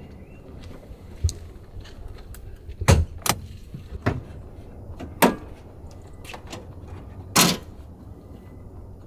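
Scattered sharp knocks and clicks, about six in all, over a low steady rumble. The strongest comes about three seconds in, and a longer clunk follows near the end.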